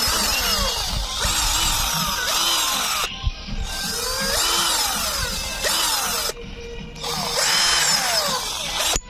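Cordless rechargeable drill running in three bursts, its motor whirring with a pitch that slides up and down, and dropping off briefly twice between runs.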